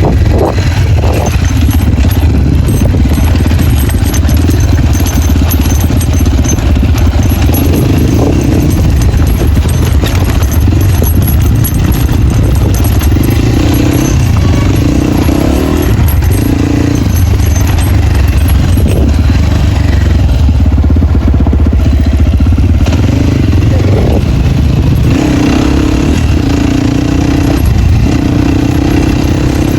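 Off-road dirt bike with its dB killer removed, riding under load: the open exhaust is loud and steady, with the engine note rising and dropping several times as the rider revs and shifts.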